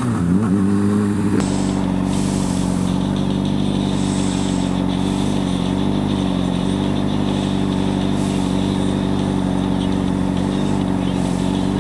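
Honda CBR600 sport bike's inline-four engine. Its pitch dips and comes back up in the first second and a half, then holds steady at cruising speed under a constant rushing noise.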